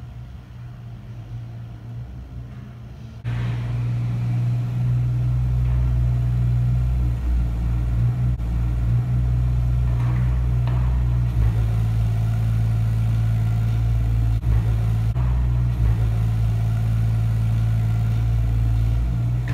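A construction machine's engine running steadily with a deep drone, starting suddenly about three seconds in.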